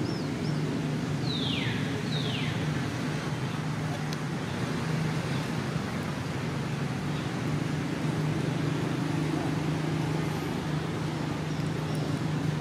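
Steady low hum of distant road traffic, with two quick high chirps falling in pitch about one and two seconds in.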